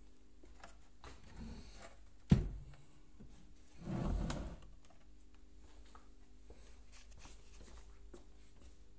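Handling noise on a PA speaker cabinet: one sharp knock a little over two seconds in, then a short rubbing scrape about a second and a half later, with small clicks over a faint steady hum.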